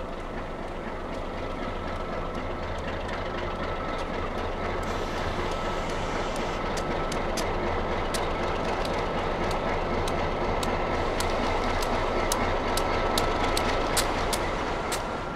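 Ex-White Pass & Yukon Alco diesel locomotive running steadily on a narrow-gauge line, growing slowly louder. From about five seconds in, the wheels click over the rail joints more and more often, over a faint steady high whine.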